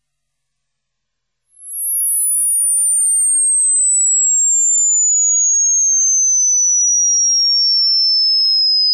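A single very high-pitched pure electronic tone starts about half a second in and glides slowly and steadily down in pitch: a loud sine-wave frequency sweep.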